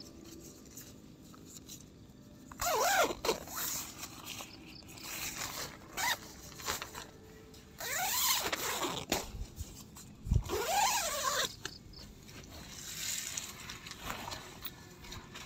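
Zipper drawn in four separate strokes, each a rasping whine that rises and falls in pitch as the pull speeds up and slows. There is one dull thump about ten seconds in.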